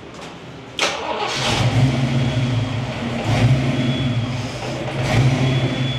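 Foxbody Mustang's fuel-injected V8 starting about a second in and then running with its idle rising and falling, started with the headlights on as a load during a base idle relearn after the battery was disconnected.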